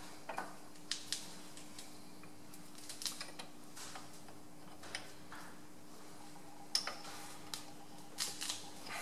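Light metallic clicks and clinks, scattered irregularly, as the change gears of a metal lathe's gear train are fitted and rocked by hand to set their mesh and backlash. A faint steady hum runs underneath.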